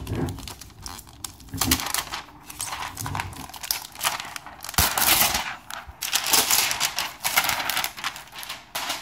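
Crinkly plastic wrapper being pulled off a new laptop and handled, a dense crackling rustle that comes and goes in louder spells.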